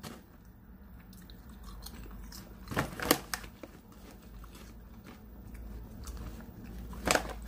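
A person chewing a crunchy corn-flavoured snack, with a few sharp crunches about three seconds in and again near the end.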